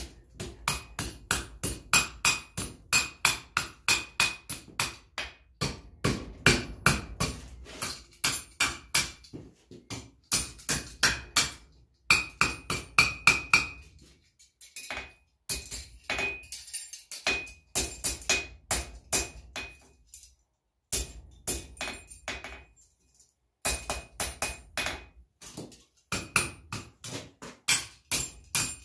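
Hand hammer striking a hot forged steel ring on a cone mandrel set in the anvil, opening the ring back up. Sharp, ringing blows about three a second, broken by a few short pauses.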